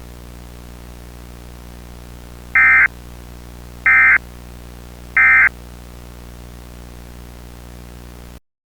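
Emergency Alert System end-of-message signal: three short, identical bursts of screechy digital data tones about a second and a half apart, marking the close of the alert. A steady low hum runs under them and cuts off abruptly near the end.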